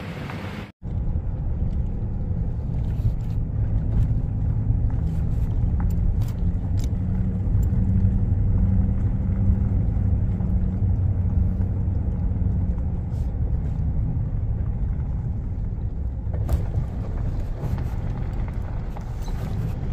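Pickup truck driving slowly, a steady low engine and road rumble heard from inside the cab.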